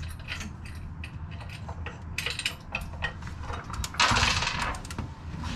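Light metal clinks and knocks as hands work on the engine and its mounting hardware, with a scraping rustle lasting about a second about four seconds in, over a low steady hum.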